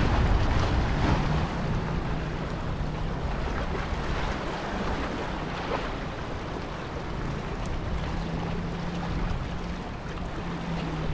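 Wind buffeting the microphone over a steady outdoor rush of noise. A faint low hum comes and goes.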